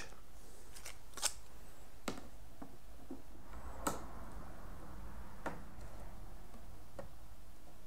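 Faint light clicks and taps of thin perspex strips being handled and set down on a wooden access hatch, a few scattered clicks over a low steady room hum.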